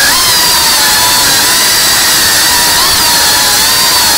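Cinewhoop FPV drone's brushless motors and ducted propellers whining loudly over a hiss of rushing air, the pitch wavering up and down as the throttle changes.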